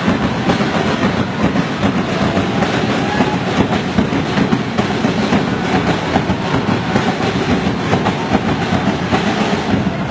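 Fast, dense drumming from an ultras-style supporters' drum section, keeping up an unbroken rapid beat with crowd noise mixed in.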